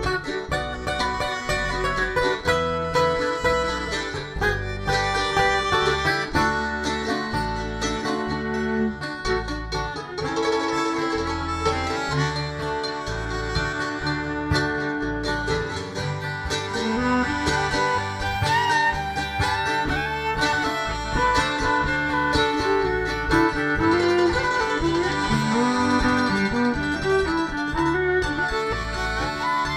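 Live acoustic string band playing an instrumental passage of a folk song: plucked strings over a steady bass beat, with a sliding, wavering lead melody in the second half.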